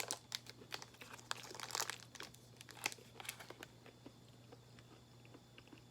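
Plastic granola bar wrapper crinkling as it is handled: a run of quick, faint crackles for the first few seconds, thinning out to occasional ticks.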